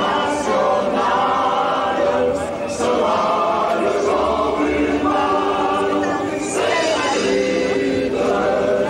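A crowd of marchers singing together in unison, many voices holding long notes of a protest song.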